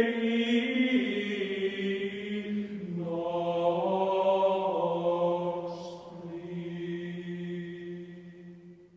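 Slow chanted voices holding long drawn-out notes, moving to a new pitch every couple of seconds, then fading away over the last few seconds.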